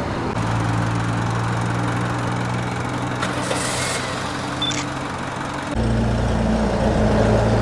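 Vehicle engine idling with a steady hum; about six seconds in, at a cut, a louder, deeper idle takes over, from a flatbed tow truck's diesel engine.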